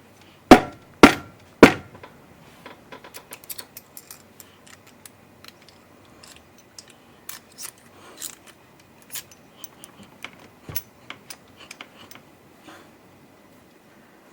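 Three sharp knocks in quick succession on the disassembled car AC compressor, then light scattered clinks and taps of its metal parts being worked loose and handled.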